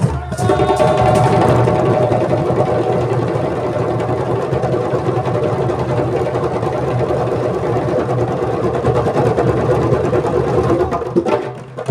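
A group of djembe hand drums played together in a fast, continuous roll, a dense rumble of rapid hand strikes with no separate beats, which stops all at once shortly before the end.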